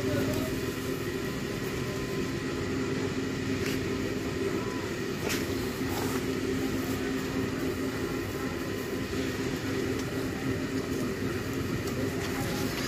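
Steady low mechanical hum, like a motor or engine running, with a few faint clicks.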